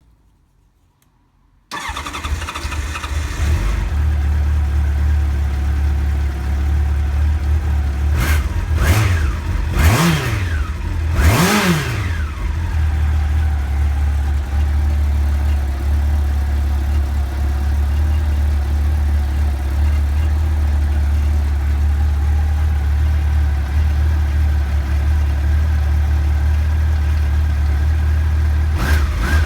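1989 Honda CBR1000F's inline-four engine starting about two seconds in, then idling steadily, with four quick throttle blips in the middle and another near the end. It runs evenly on all cylinders, the misfire cured by reseating the stick coils on the spark plugs.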